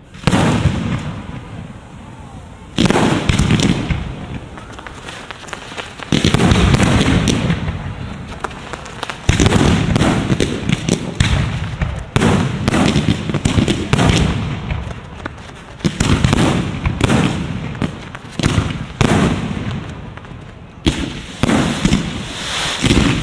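Fireworks display: aerial shells bursting one after another every second or two, each a sharp boom with a low rumbling echo that dies away, with quick crackling in between.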